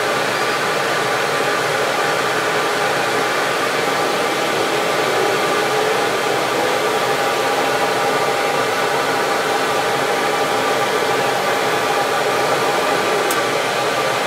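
CamVac CGV336-4 dust extractor running steadily with both of its motors on, together with a wood lathe spinning a pen blank while it is sanded.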